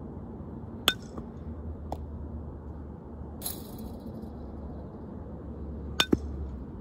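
Sharp clinking hits of a metal softball bat striking balls for ground-ball practice: one about a second in and two in quick succession near the end, over a steady low rumble.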